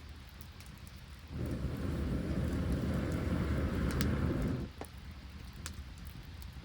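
Gusts of wind rumbling on the microphone: a long gust starting suddenly about a second and a half in and cutting off near the end. A few sharp crackles from a wood campfire sound over it.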